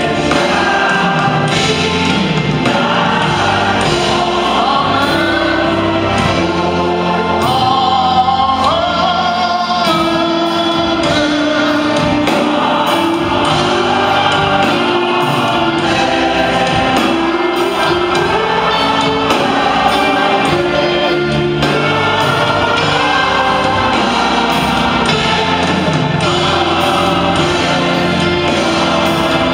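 Choir singing gospel music.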